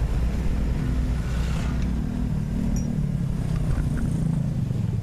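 Motor vehicle engine running with a steady low hum, under heavy wind rumble on the microphone.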